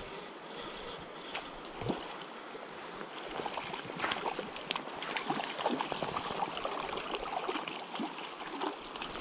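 Creek water running and gurgling, with a busier patter of small splashes from about three seconds in.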